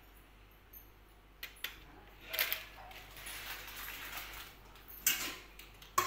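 Light clinks and knocks of kitchen utensils, a few single ones spread out, with a soft hiss for a couple of seconds in the middle.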